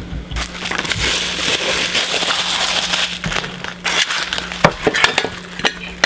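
Plastic packaging crinkling and rustling as it is handled, followed in the later part by scattered clicks and knocks.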